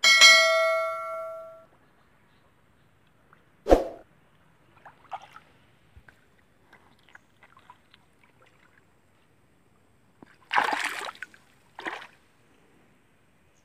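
A bell chime sound effect rings and fades over about a second and a half. Then otters splash in river water: one sharp splash a few seconds in, small trickles and drips, and two bursts of splashing near the end.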